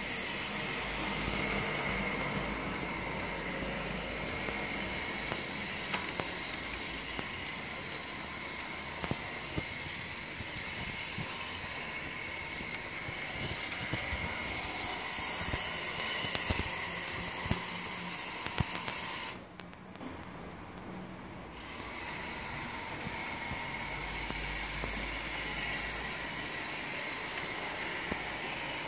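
Model tram running on its layout track: a steady whirring hiss from the small electric motor and wheels, with a few sharp clicks along the way. The sound drops away for about two seconds about two-thirds through, then returns.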